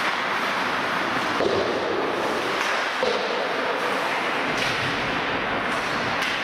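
Ice hockey play on a rink: a steady scraping hiss of skates on the ice, broken by a handful of sharp clacks of sticks and puck.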